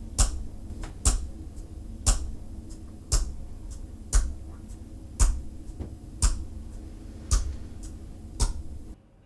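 Clock ticking, one loud tick about every second with fainter clicks between, over a low steady hum; it cuts off just before the end.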